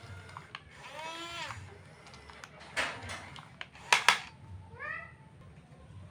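A few short, high-pitched wavering cries, with loud sharp clacks in the middle and a low rattling hum underneath.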